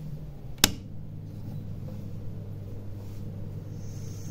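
A sharp click about half a second in as the power rocker switch on a Strong micromotor control unit is pressed, over a low steady hum. Near the end a high whine starts as the speed knob is turned up and the rotary handpiece spins up.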